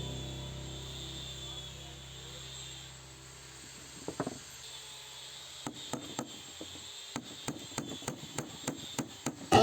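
Light hammer taps on wood: a couple of taps about four seconds in, then a steady run of taps at about three a second.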